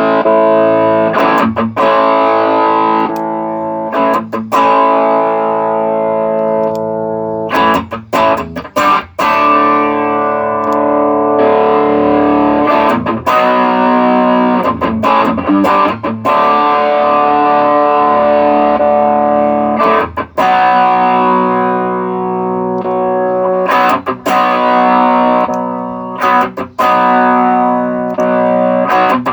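Electric guitar played through a TC Electronic Nova Drive overdrive and distortion pedal: distorted chords held and let ring, with brief stops between them. This is a sound test of the pedal working again after its gain and volume pots were replaced.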